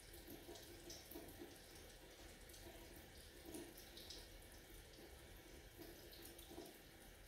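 Near silence: faint room tone with a few soft, brief sounds scattered through it.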